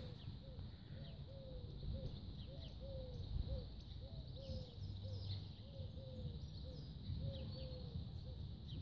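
Birds calling: a run of short, low arched notes, about two or three a second, with faint thin high notes falling in pitch above them, over a low outdoor rumble.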